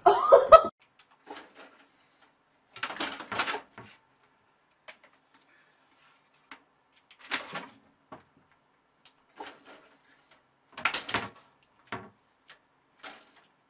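A brief loud cry right at the start, then scattered bursts of scratching and clattering as a kitten scrambles up a plastic computer tower, its claws catching on the case and the curtain beside it; about three main bursts with small ticks between.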